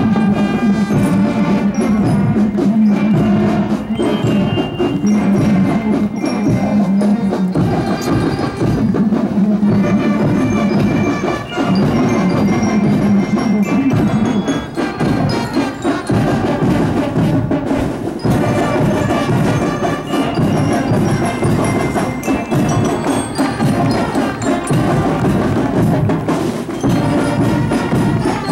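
Parade marching band playing: bell lyres ring out a melody over steady drumming.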